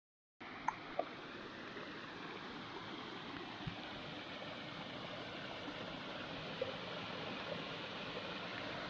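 Steady rushing of a moorland beck's flowing water, starting abruptly half a second in, with two brief clicks about a second in.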